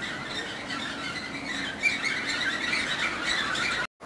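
Steel wheels of a 5-inch gauge ride-on train squealing on the track, a high wavering squeal that cuts off suddenly near the end.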